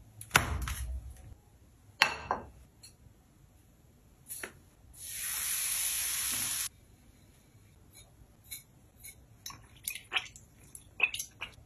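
Hot oil ladled onto seasonings and sesame seeds in a ceramic dish, sizzling steadily for about two seconds and then cutting off suddenly. Around it come a few knocks and clinks of dishes and utensils, the two loudest near the start.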